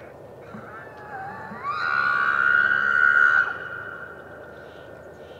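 Bull elk bugling in the rut: a whistle that rises from about half a second in, holds a high steady note for about a second and a half, then fades out.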